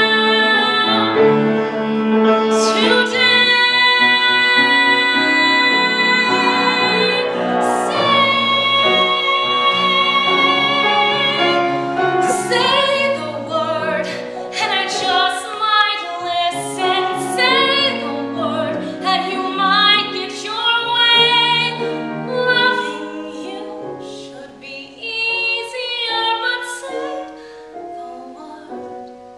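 A woman singing a musical theatre song solo, holding long high notes for the first several seconds, then moving into shorter phrases that grow quieter toward the end.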